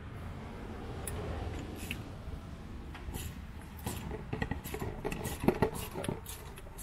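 Hand tools working a seized sway bar bolt on a Jeep Cherokee: scattered metallic clicks and knocks over a low steady rumble, growing busier about halfway through, as the stubborn bolt is worked loose.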